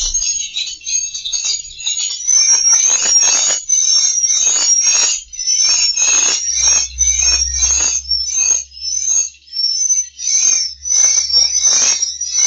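Swiftlet lure sound of the kind played in swiftlet houses: a steady stream of high, rapid twittering chirps repeating without pause.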